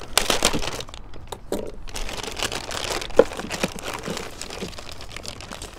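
Clear plastic bag crinkling and rustling as hands open it and rummage through the accessory parts inside, with one sharper click about three seconds in.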